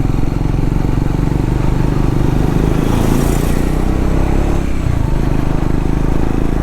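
Single-cylinder engine of a Triumph Scrambler 400X motorcycle running steadily while riding on a slushy snow road, with a brief hiss about three seconds in.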